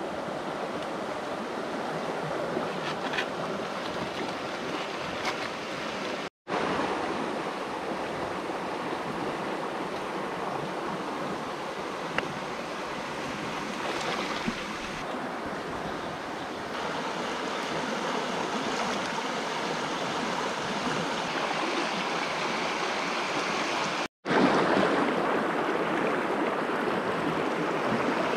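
Stream water rushing steadily, an even hiss with no distinct splashes, cut off twice for a split second.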